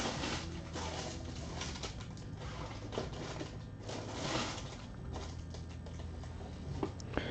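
Faint irregular rustling and light clicks over a low steady hum.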